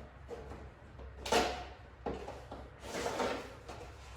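Handling noises from a new engine air filter being picked up and handled: a few short rustling, scraping bursts, the loudest about a second in.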